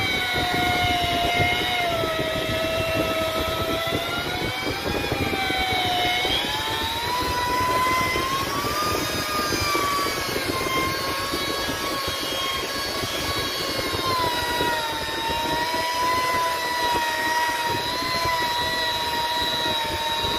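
Electric rotary polisher with a foam pad whining as it buffs polishing compound on car paint. Its pitch sags a little twice in the first six seconds, climbs around eight seconds in, then holds fairly steady as the pad's pressure on the panel changes.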